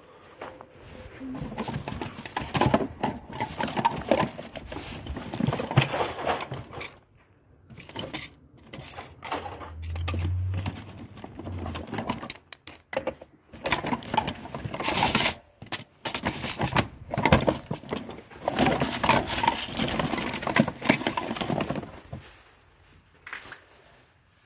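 Brown paper bag rustling and crinkling as a hand rummages through it, with plastic toys clicking and knocking against each other in irregular bursts, pausing twice.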